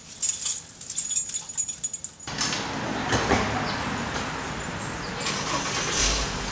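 Light metallic jingling and clicking for about two seconds. Then an abrupt cut to steady outdoor street ambience with traffic noise, and a low rumble near the end.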